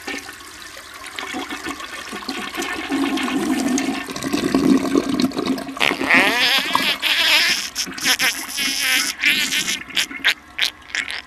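Rushing, gurgling water that builds over several seconds, with warbling sounds about six seconds in and a run of sharp clicks in the second half.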